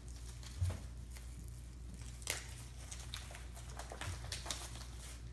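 Packaging being handled and opened by hand: a few scattered rustles and sharp clicks over a steady low hum.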